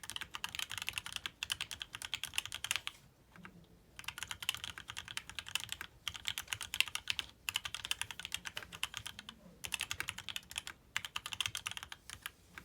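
Fast typing on a custom mechanical keyboard with lubed Black Gateron Ink switches on an aluminium plate, fitted with RAMA SEQ2 keycaps and sound dampening. The key presses come in quick runs broken by short pauses.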